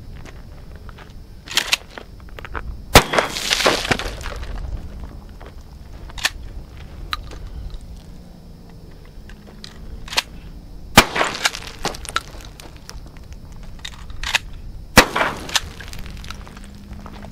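Three shots from a 12-gauge pump-action shotgun with a cut-down barrel, a Mossberg 500 type, about three, eleven and fifteen seconds in, each followed by a short rolling echo. Lighter clacks between the shots come from the pump being worked.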